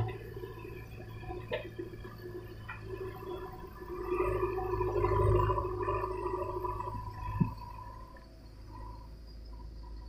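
JCB 3DX backhoe loader's diesel engine and hydraulics running under load while loading mud, a steady drone with held whining tones that grows louder between about four and six seconds in.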